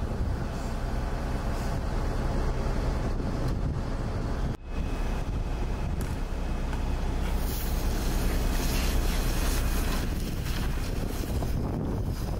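Steady low rumble of a fire engine running on the fireground, with wind buffeting the microphone. The sound drops out for a split second about four and a half seconds in.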